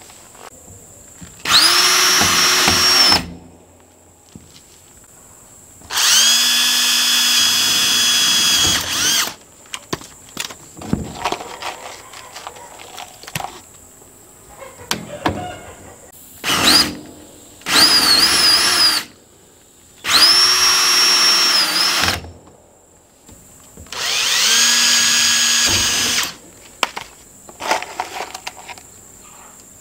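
Cordless drill run in about six separate bursts of one to three seconds, its pitch sagging near the end of some as it loads up, while drilling and driving set screws into a PVC pipe coupling. Small handling clicks come between the bursts.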